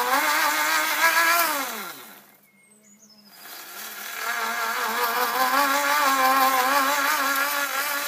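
A small electric power tool's motor runs in two bursts, its pitch wavering under load and dropping as it winds down at the end of each run. It is being pressed against oiled wood to friction-burn it.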